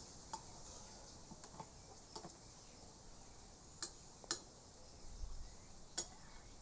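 A metal spoon clicking against a blender jar as it stirs and scoops thick blended fig pulp: a handful of short, sharp clicks at uneven gaps, the clearest near the middle and near the end.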